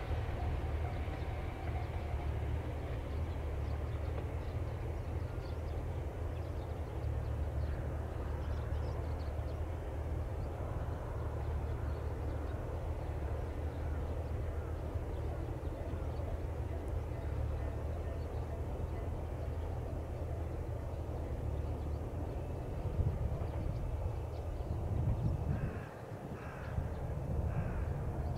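Open-air trackside ambience: a steady low rumble, with the last of a passing train fading out in the first couple of seconds. A bird calls three times near the end.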